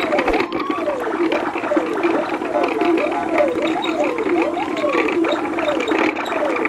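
Looping electronic background track: a steady hum with falling pitch sweeps repeating at an even rhythm.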